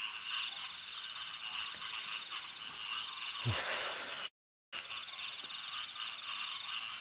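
Night-time insect chorus: a steady high trilling with a thin whine above it. A short low croak sounds about three and a half seconds in, and the sound cuts out completely for about half a second shortly after.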